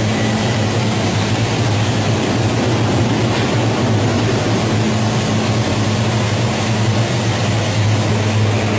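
French fries production line machinery, stainless-steel conveyor and its electric motors, running steadily: a loud, even mechanical din over a low, constant hum.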